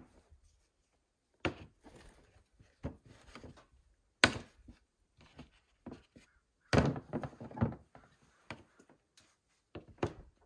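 Scattered knocks, clicks and thunks of hand tools and parts being worked on the Honda ATV's plastic front bodywork, irregular and with pauses between them. The sharpest knock comes near the middle, followed by a quick run of clatter.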